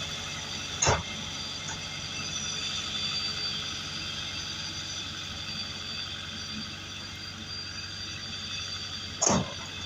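Sakai road roller's diesel engine running steadily as the roller moves slowly over the sand road. Two short, loud thumps stand out, one about a second in and one near the end.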